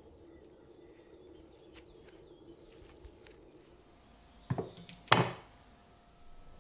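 Two knocks of metal on wood about half a second apart, the second louder: the rusty bayonet being set down on an end-grain wooden board. Before them there is only a faint hum with light crackle.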